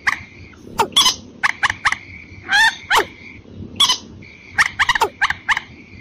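Watercock and common moorhen calls from a bird-lure recording: a rapid, irregular series of short, sharp calls, several a second, over a steady high-pitched tone that drops out briefly midway.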